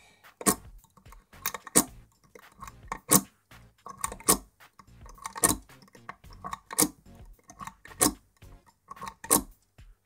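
Steel lock pick being worked in the keyway of a brass euro-profile pin-tumbler cylinder under tension from a Z wrench, the pins and pick clicking: a sharp click about every second and a quarter, with fainter ticks between.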